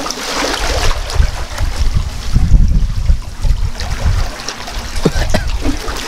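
Wind buffeting the microphone in gusts as a low, uneven rumble, with a hissing wash like surf or running water behind it.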